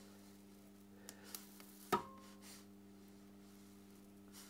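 Proxxon Thermocut hot-wire cutter switched on at its 1.5 heat setting, giving a faint, steady mains hum. A sharp click sounds about two seconds in.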